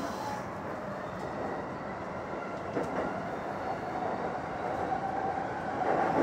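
JR Saikyo Line electric train running on the tracks, heard from inside the front car: steady rolling noise, with a couple of faint clicks of the wheels over rail joints about three seconds in. A motor whine grows louder in the second half.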